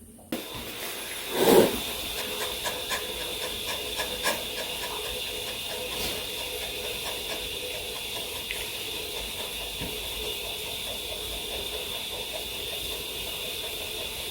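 A pet panting with quick, puppy-like breaths, heard as a steady fast rhythmic hiss, with one brief louder sound about a second and a half in.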